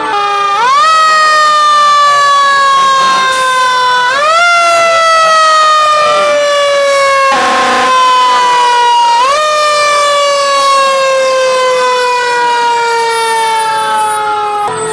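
Fire truck siren wound up three times, each time rising quickly and then slowly falling in pitch. A short burst of noise cuts in about halfway through.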